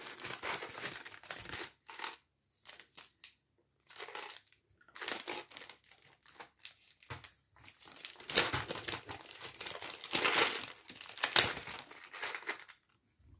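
Plastic packaging crinkling and rustling as a plastic mailer and a clear plastic bag are handled and opened, in irregular bursts with short pauses, busiest in the second half.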